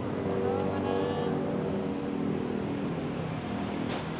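Street traffic: a motor vehicle engine running steadily, with a brief hiss near the end.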